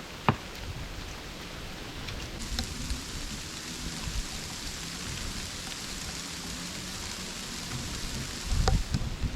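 Steady rain falling, an even hiss with scattered drop ticks and one sharp tap a fraction of a second in. Low rumbling rises near the end.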